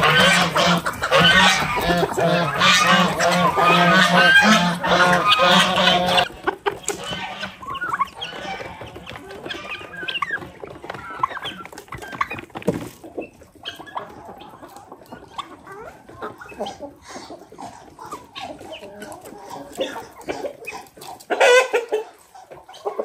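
Mixed farmyard poultry flock of chickens, ducks and guinea fowl calling and clucking over one another. The calls are loud and dense for the first six seconds, then quieter scattered clucking while the birds peck at grain, with a short loud burst of calls near the end.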